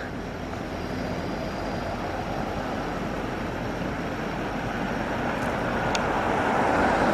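Car driving, with a steady road and engine noise that slowly grows louder.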